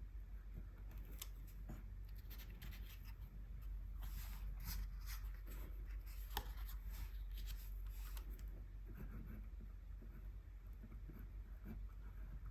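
Soft scratching strokes and small clicks of gouache being swatched on paper, busiest in the middle of the stretch.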